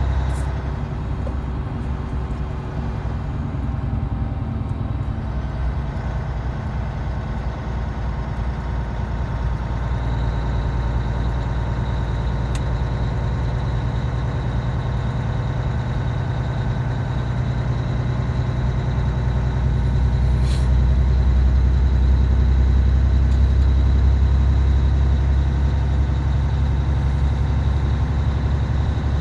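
Steady low drone of a semi-truck's engine and road noise heard inside the cab while driving, growing louder about two-thirds of the way through.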